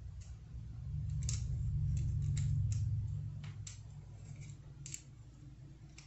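Scattered small, sharp clicks of a fingerboard skate tool and a Tech Deck truck's axle hardware, as a loose Hot Wheels wheel is refitted and its axle nut tightened. A low hum swells underneath about a second in and fades out after the middle.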